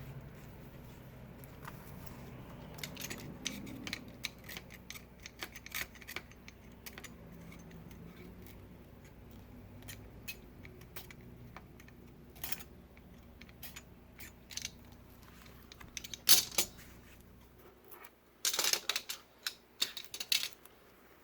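Small clicks and ticks of hand tools and adhesive strips being handled on a workbench, with a sharp louder click about sixteen seconds in and a quick run of clicks near the end.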